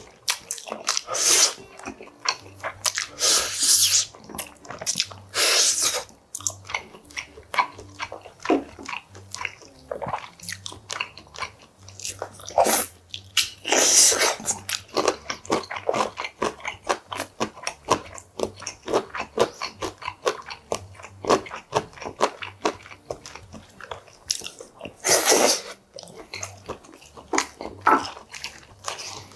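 Close-up eating sounds of beef short rib soup: wet chewing and smacking of rib meat, with about five loud slurps of broth from a spoon in between.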